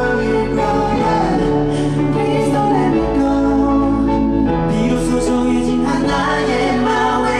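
K-pop song with male group vocals over a full backing track, played through a venue's sound system during a sound-check rehearsal.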